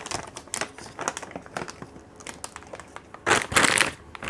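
Plastic fluid bag and its wrapping being handled, crinkling and crackling, with a louder crinkle about three seconds in.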